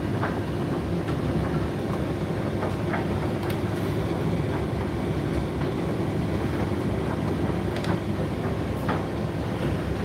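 Indesit IDC8T3 condenser tumble dryer running mid-cycle: a steady rumble of the turning drum and fan, with faint clicks now and then.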